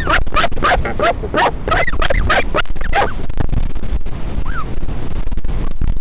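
Northern royal albatross parent and chick calling to each other at the nest: a fast chattering run of short calls, about five a second, that fades out after about two and a half seconds, then one short call near the end. A steady low rumble runs underneath.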